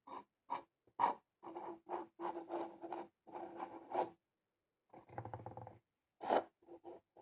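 A LEGO Technic piece being twisted by hand in a hole drilled through a table to turn a display turntable, scraping and creaking in short, irregular strokes.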